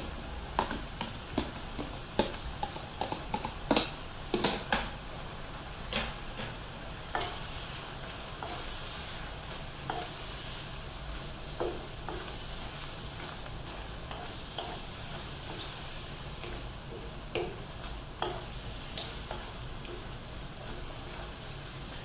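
Wooden spatula stirring in a nonstick wok of saucy beef, kimchi and tofu, knocking against the pan over a steady sizzle. The knocks come often in the first several seconds, then more sparsely.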